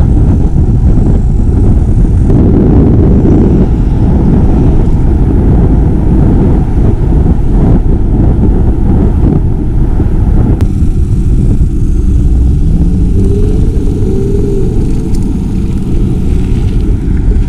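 Loud, steady low rush of wind buffeting the camera microphone, mixed with tyre rumble from a mountain bike riding a rocky trail.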